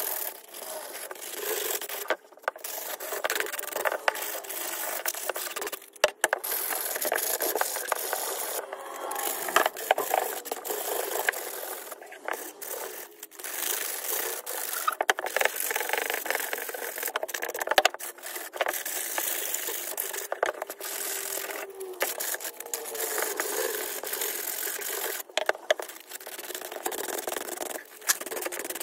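Driftwood branch being hand-sanded with sandpaper: continuous back-and-forth rubbing strokes, broken by several brief pauses.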